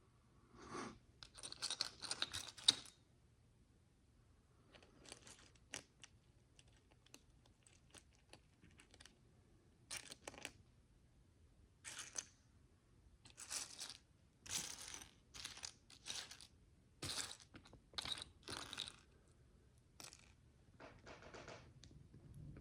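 Tiny plastic micro bricks being handled and pressed together: faint, irregular short bursts of clicking and rustling, the loudest cluster about two seconds in.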